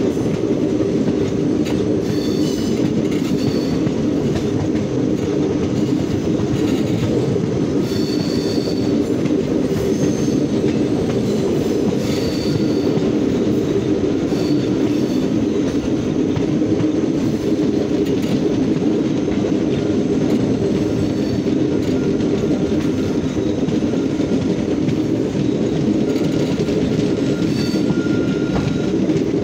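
Passenger train running at speed, heard from an open coach window: a steady, loud rumble of wheels on the track, with a few brief high squeaks from the wheels now and then.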